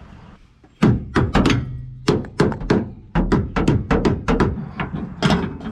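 Hammer blows on metal: a fast run of sharp strikes starting about a second in, roughly four a second, each with a short ring.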